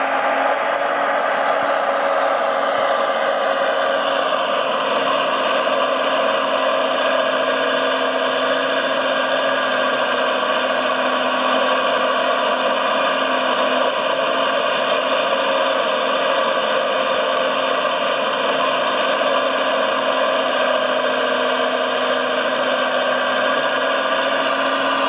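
RC model truck running: a steady engine-like drone with a whirring hiss. Its pitch dips slightly a few seconds in and rises again near the end.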